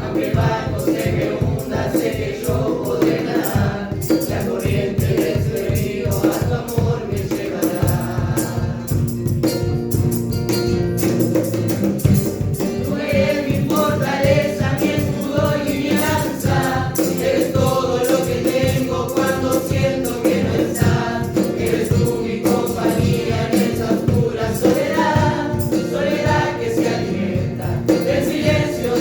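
A group of voices singing a song together over accompaniment with a steady percussive beat.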